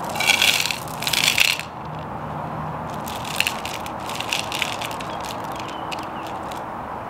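Small dark gray decorative rocks poured from a plastic bag into a shallow planter saucer in two quick pours, then clicking against each other here and there as a hand spreads them out.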